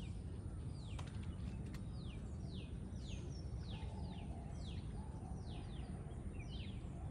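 A bird repeating a short call that falls in pitch, about ten times in quick succession, over a steady low rumble.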